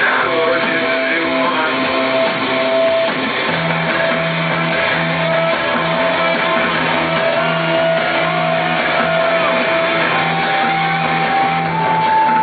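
Live rock band playing an instrumental passage, led by electric guitar over a steady pulsing bass line, loud and dense as heard through the audience recording.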